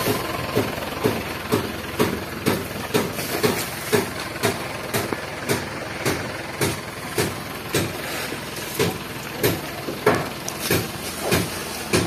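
A machine running, with a steady, regular knock about twice a second.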